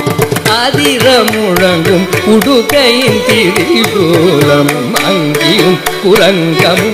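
Carnatic concert music in raga Mohanam: a melodic line with quick gliding ornaments over steady mridangam strokes.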